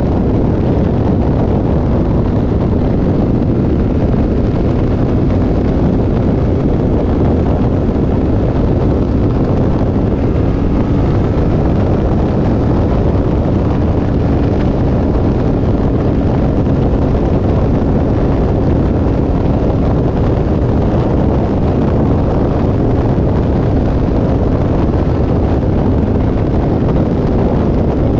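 Wind buffeting the microphone of a camera on a sport motorcycle at riding speed, with the engine's steady drone underneath.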